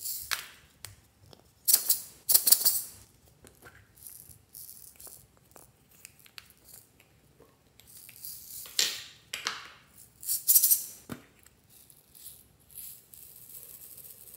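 Small plastic charms and beads rattling inside hollow plastic toy containers as they are opened, shaken and tipped out, in several short bursts of rattling. Near the end comes a steadier hiss of tiny beads pouring out onto the slime.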